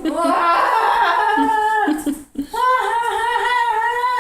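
A dog howling in two long, wavering calls with a short break between them, as puppies pile on and play-bite it.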